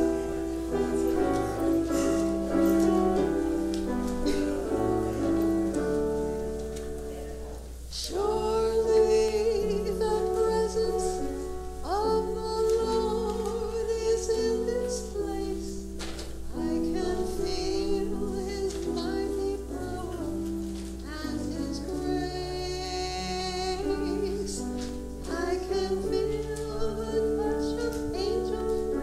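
Piano music with a solo singing voice that enters about eight seconds in on a wavering, sustained melody over the piano's changing chords. A steady low hum runs underneath.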